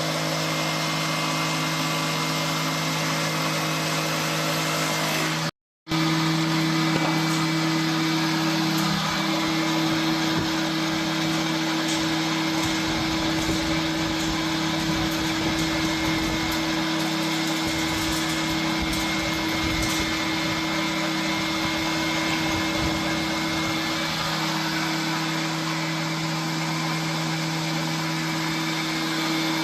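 Electric surface and thickness planer machine running with a steady motor hum over a rushing noise, rougher and deeper for several seconds in the middle. The sound cuts out for a moment about six seconds in.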